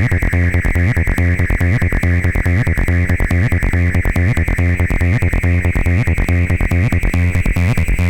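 Live acid techno played on hardware synths and samplers: a fast, steady beat over a heavy bass line, with a high sustained sound slowly rising in pitch.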